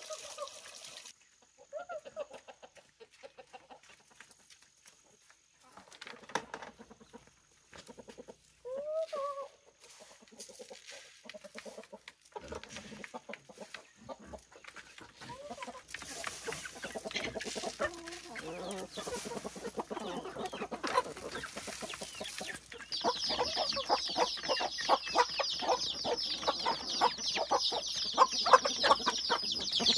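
Chickens clucking now and then, then a flock of chickens pecking grain from a trough: a dense patter of quick pecking taps that starts about halfway through and gets louder and busier toward the end.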